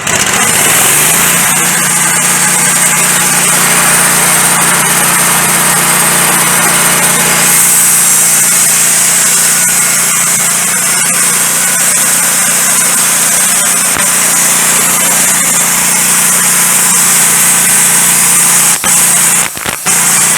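Wood-Mizer LT15 Go band sawmill revving up and then running steadily at full speed, its band blade sawing through a pine log, a loud steady hiss over the motor's hum. The sound dips briefly a few times near the end.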